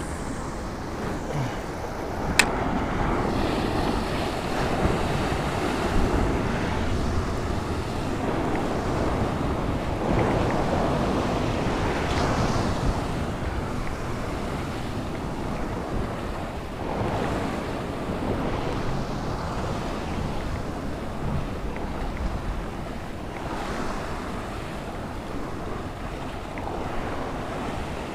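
Sea surf washing and breaking against rocks below, swelling and easing with each wave, with wind buffeting the microphone. A single sharp click comes about two seconds in.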